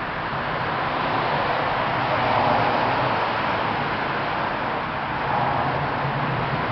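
Steady rushing noise, even in level, with no clear beats or pitch changes.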